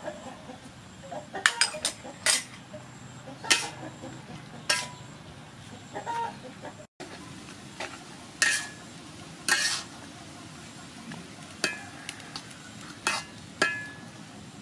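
Metal spatula clanking and scraping against an aluminium wok as beef and leafy greens are stir-fried, about a dozen irregular strikes over a light sizzle. A chicken clucks now and then in the background.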